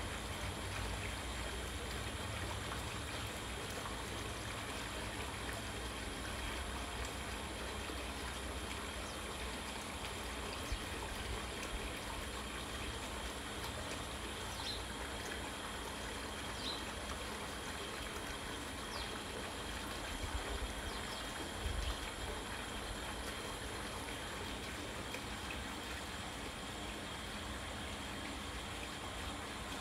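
Steady background hiss with a faint constant hum and whine, and a few faint, short high sounds about halfway through.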